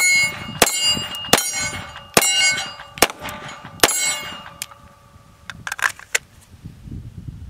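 Six shots from a Ruger 22/45 .22 LR pistol, a little under a second apart, each hit answered by steel plate targets ringing. A few soft clicks follow near the end.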